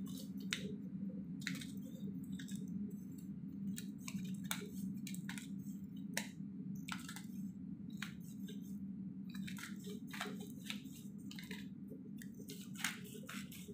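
Salt grinder being twisted over a bowl of sliced green mango, giving irregular dry clicks and crackles of grinding salt that come thicker near the end. A steady low hum runs underneath.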